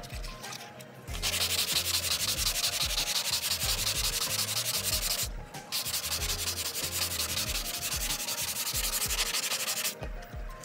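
Plastic headlight lens being wet-sanded by hand with 220-grit sandpaper: rapid back-and-forth scrubbing strokes. It starts about a second in, breaks briefly midway, and stops shortly before the end.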